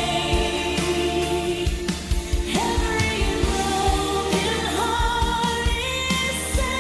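Christmas pop song: a steady drum beat under a sliding sung melody, with no clear words.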